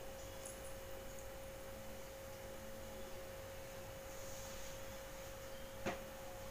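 A steady, faint electrical tone holding one pitch, with a single short click about six seconds in.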